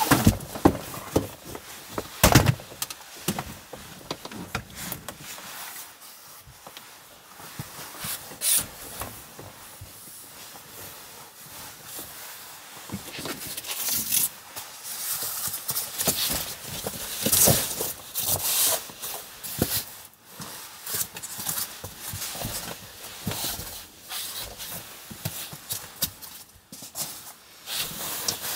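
Camping gear being handled in a small room: a folding camp chair knocks and clacks as it is folded and hung up, with one loud knock about two seconds in. Later, rustling and soft thumps as a foam sleeping mat and sleeping bag are laid out.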